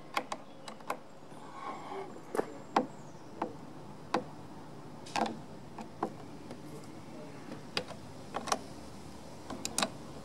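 Irregular sharp metallic clicks of a 10 mm open-end spanner working the pivot nut of a Honda Forza 125 handlebar brake lever, with a flat screwdriver holding the pivot bolt. The nut is being snugged only lightly, to under 5 Nm.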